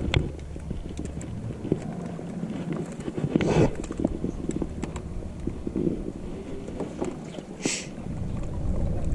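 Aluminum jon boat moving across calm water: a steady low rumble of wind on the microphone and water along the hull, with scattered light knocks and two brief rushing noises, about three and a half and about eight seconds in.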